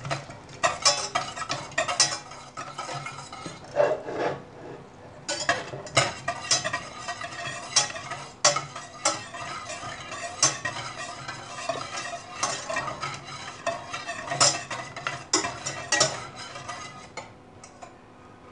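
Wire whisk stirring melting butter in a stainless steel saucepan, its wires clinking and scraping against the pan in irregular strokes.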